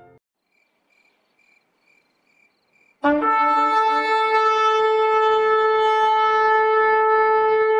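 After about three seconds of near silence with faint high chirps, a shofar (ram's horn) sounds one long, loud, steady blast. It starts on a brief lower note and then holds a higher one.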